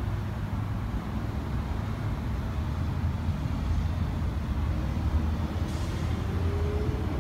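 Steady low rumble of a running motor, with a faint tone that rises slightly near the end.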